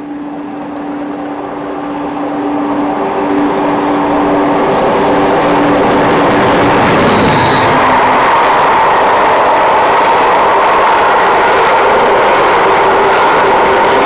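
British Rail Class 50 diesel locomotive approaching with a steady English Electric engine note that grows louder, then passing close, followed by the loud, even rumble and rattle of its coaches going by. A brief high squeal comes about seven seconds in, and near the end the Class 47 locomotive on the rear of the train passes.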